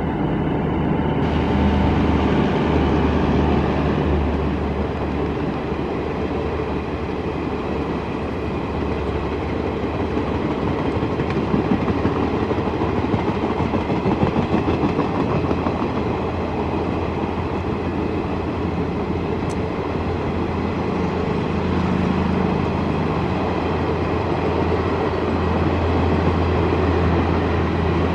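Passenger train of ICF coaches running on the track: a continuous rumble and clatter of wheels on rail with a low hum, the clatter growing denser and a little louder for a few seconds in the middle.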